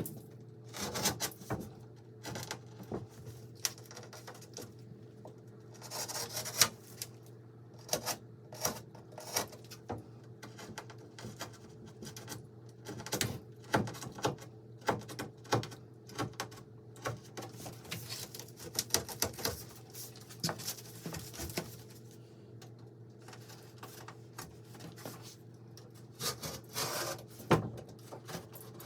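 Irregular scraping, rubbing and light knocks of hand work on wood or drywall, over a steady low hum.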